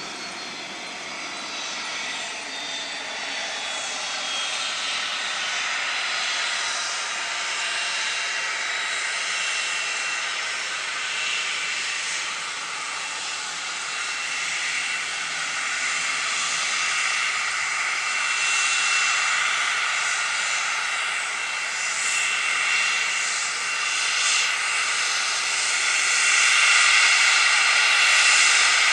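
Cessna Citation XLS+ business jet's twin turbofan engines whining as it rolls out and taxis after landing. A high whine falls in pitch over the first few seconds, then holds steady and grows louder as the jet comes closer.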